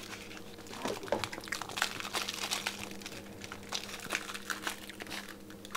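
Plastic packaging crinkling and crackling in irregular small bursts as a newly unboxed transformer and its leads are handled, over a faint steady hum.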